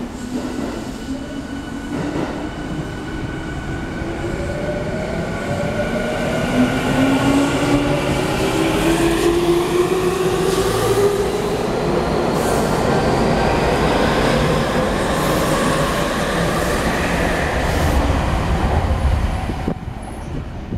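Yokohama Minatomirai Railway Y500 series electric train pulling away and accelerating: the traction motor whine climbs steadily in pitch, with several tones rising together, while wheel and rail noise builds as the cars pass. The sound is loudest in the middle and drops off sharply near the end.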